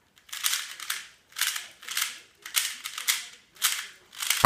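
Rubik's cube being turned fast during a speed-solve: the plastic layers clack and rattle in quick bursts about twice a second. Near the end, one sharp, louder knock.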